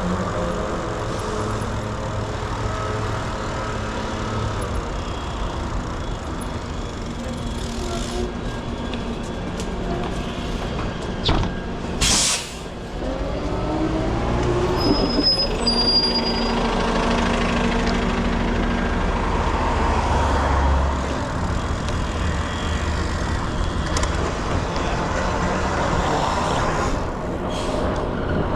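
Urban road traffic: engines of passing vehicles, including heavy ones, run steadily and some rise in pitch as they pull away. A short, loud hiss comes about twelve seconds in.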